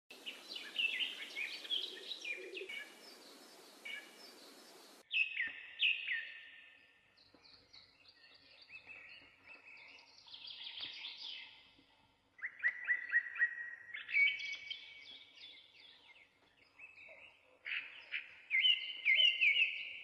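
A hand-pump garden pressure sprayer hissing out a spray for about the first five seconds, with a short break partway, over bird chirps. It cuts off, and a songbird sings repeated phrases of quick falling chirps with pauses between.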